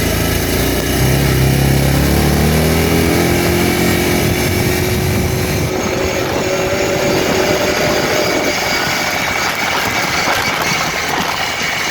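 Kawasaki Brute Force ATV engine under way, its pitch rising as it accelerates over the first few seconds, then holding steady. About six seconds in, the engine sound eases and drops away.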